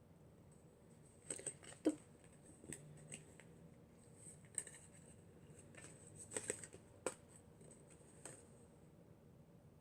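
Scissors snipping at the plastic tag hooked through a pair of socks, in a handful of scattered short clicks and snips, the loudest about two seconds in.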